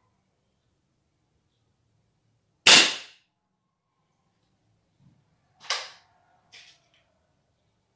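A B19S break-barrel air rifle fires a single shot about a third of the way in. About three seconds later come a metallic clack with a brief ring and then a small click, as the rifle is handled after the shot.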